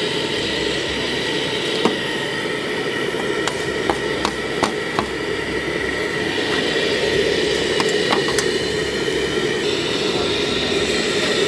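Food stall at work: a steady background hum with a handful of sharp knocks and clicks of utensils during food preparation, most of them between about two and eight and a half seconds in.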